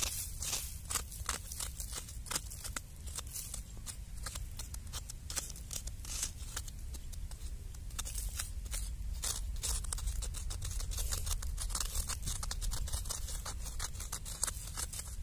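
A hand digging tool scraping and chopping into dry, crumbly soil: quick repeated scrapes and crunches of earth, a few strokes a second, coming faster in the second half, over a steady low rumble.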